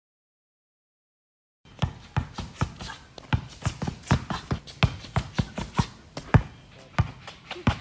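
After about a second and a half of silence, a basketball dribbled hard and fast on a concrete court in in-and-out and crossover dribbles: a quick, steady run of bounces, about three a second.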